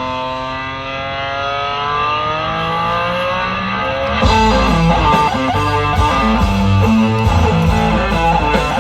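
Guitar music: a held chord that slowly bends upward in pitch, then about four seconds in the full band with drums and rhythmic guitar chords kicks in.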